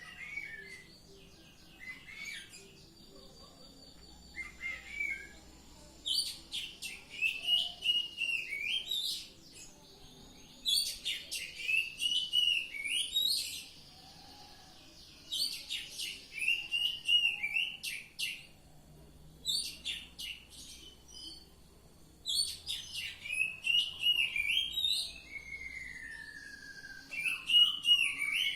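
Oriental magpie-robin (kacer) singing in full, open voice ('ngeplong'). It sings repeated phrases of a few seconds each, made of whistles and rapid notes with pauses between them.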